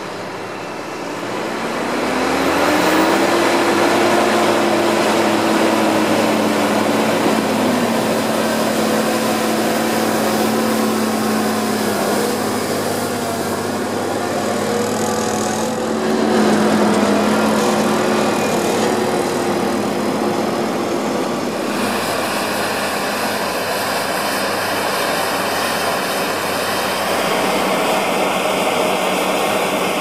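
Fendt 936 Vario tractor's six-cylinder diesel engine working under heavy load while pulling a deep plough. The engine note climbs and grows louder over the first two seconds or so, then runs steady with slight rises and dips in pitch.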